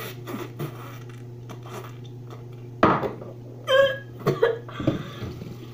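A person with a big mouthful of curry straining to swallow it: short muffled mouth and throat noises, a loud sharp cough-like burst about three seconds in, and brief groaning sounds soon after. A steady low hum runs underneath.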